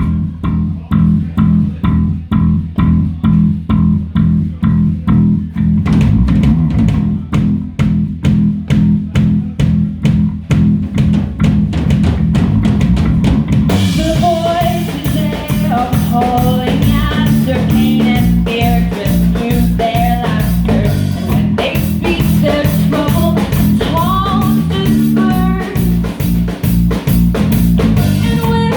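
Band music: drums and bass guitar play a steady beat of about two a second, and guitar and other melodic parts join about halfway through.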